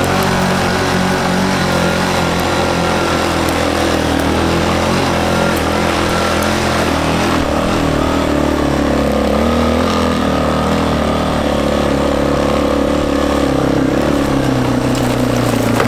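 Four-wheeler (ATV) engine running steadily under way, its engine speed holding nearly constant with only small changes.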